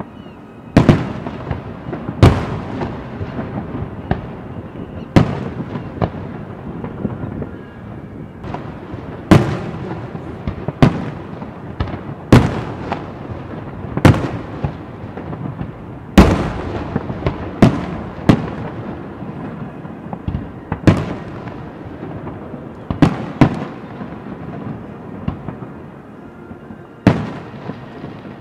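Aerial firework shells bursting overhead in quick succession: over a dozen sharp booms, one every second or two, each trailing off in a rumble, with a continuous rumble between them.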